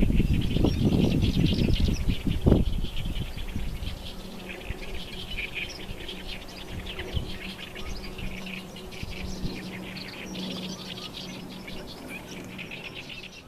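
Wind gusting through reeds and over the microphone for the first couple of seconds, then easing. Small birds chirp and twitter continuously throughout.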